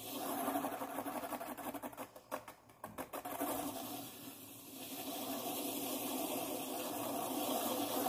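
Felt-tip marker tip rubbing against the spinning cardboard hub of a homemade motorised cardboard fan: a steady buzzing scrape over the fan's small motor. It swells at the start and is broken by a few sharp clicks between two and three seconds in.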